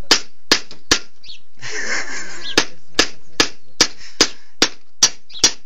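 Hand hammer peening the edge of a steel scythe blade on a small anvil: sharp metallic taps at an even beat of about two and a half a second, cold-forging the edge thin to sharpen it. The tapping breaks off about a second in for a second and a half, with a brief rustle, then resumes.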